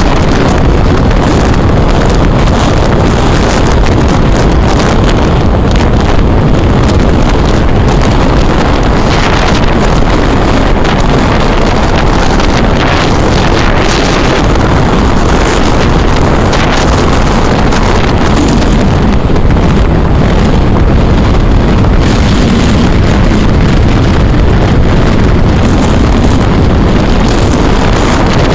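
Loud, steady wind rushing over the microphone of a camera held at the side of a moving car, with the car's road noise beneath.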